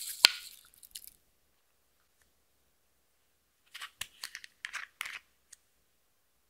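Crisp crackling and sharp clicks of hands working glitter- and sequin-covered clear slime and handling a plastic makeup tube. The sound comes in two short clusters about four seconds apart, with silence between. The loudest click is just after the start.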